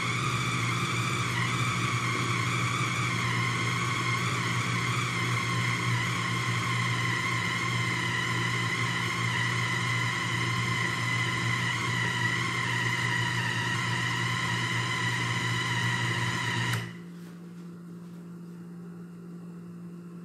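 Electric mini food chopper grinding beef meatball paste mixed with sago flour: a steady high motor whine that stops abruptly about seventeen seconds in, after which a faint low hum remains.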